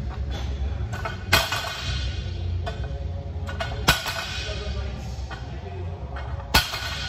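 Background music with a steady bass beat, over which a loaded barbell's plates clank down on a lifting platform three times, about two and a half seconds apart, as each row is set back on the floor.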